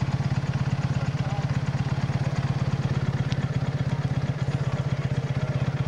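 Motorcycle engine idling steadily, an even low throb of regular exhaust pulses.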